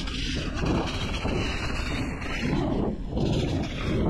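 Wind buffeting an action camera's microphone, mixed with tyre rumble and rattle from an electric mountain bike riding a dirt trail; the noise swells and eases every second or so.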